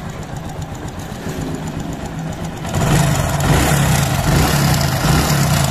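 Hero Splendor Plus single-cylinder four-stroke engine running with a fast, steady rattle, getting louder about halfway through. The noise is the timing chain, a sign the chain needs replacing or adjusting.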